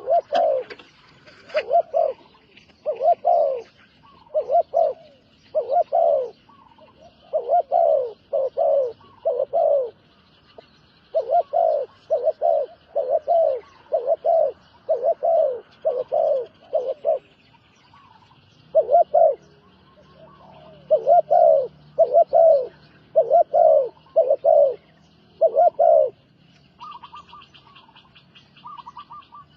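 A bird calling with a long series of low, hollow cooing hoots, about one and a half a second, in runs broken by short pauses. A second, smaller bird chirps faintly behind it, and a quick run of higher notes comes near the end.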